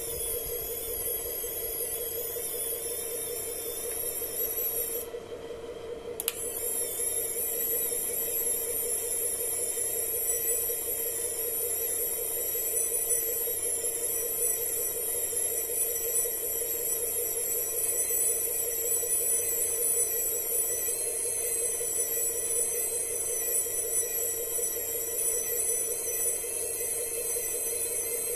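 Radio-controlled 8x8 tow truck's crane drive running with a steady whine and hiss, holding one pitch. The higher hiss drops out briefly about five seconds in.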